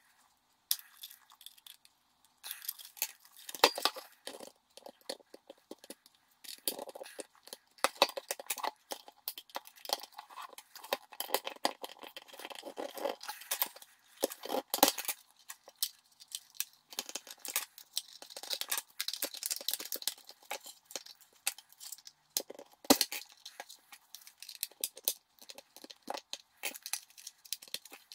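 Plastic card and plastic trim tools prying at the seam of a VW Golf Mk6 auto-dimming rear-view mirror's plastic housing to unclip it: irregular plastic clicks, snaps and scraping.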